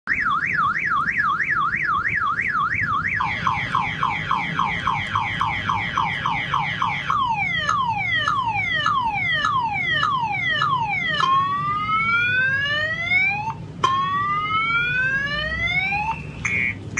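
Electronic car alarm siren cycling through its tones: a fast up-and-down warble, then rapid falling chirps, then slower falling sweeps, then long rising whoops about every two and a half seconds, switching to short repeated beeps near the end.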